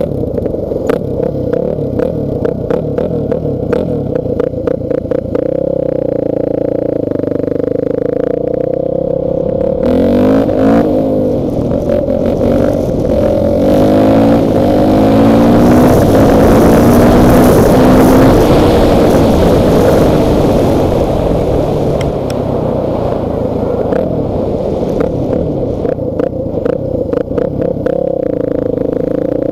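Motorcycle engine running while riding along a road. Its pitch rises and falls with the throttle, and it is loudest for several seconds in the middle. A rapid rattling clatter is heard near the start and again near the end.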